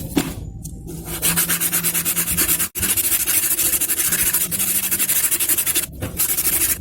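Steady scraping noise of abrasive work on a part, broken off sharply twice.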